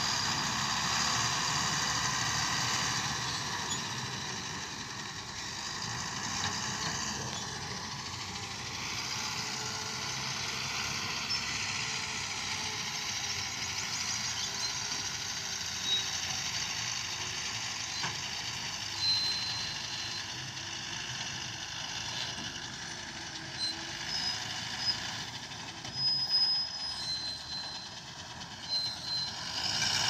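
Heavy tipper truck driving slowly over rough ground: diesel engine running steadily under road and body noise, with a few louder knocks from the truck's body in the last few seconds.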